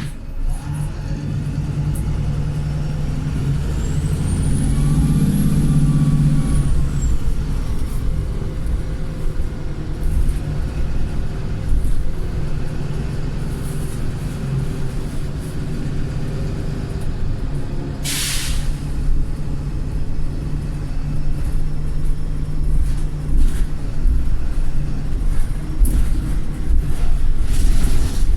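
Wright Pulsar bus's diesel engine pulling, with a high turbo whistle that rises and then falls over about three seconds as the engine note swells: a squealing turbo that is cracked. About two-thirds of the way through comes a short, sharp hiss of air, the bus's 'sneeze'.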